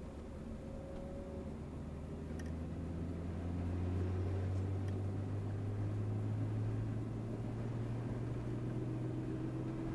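Turbocharged RB inline-six of a Nissan 300ZX running at low revs, heard inside the cabin as a steady low drone. Its pitch creeps up slightly and it grows a little louder over the first few seconds, then holds steady.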